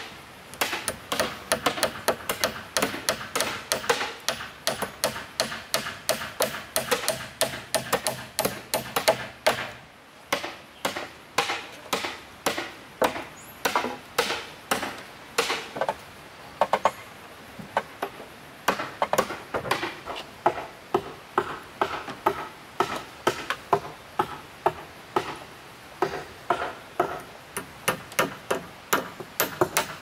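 Hammering on bamboo framing: sharp, steady blows at about two to three a second, with two short pauses, one about a third of the way through and one just past halfway.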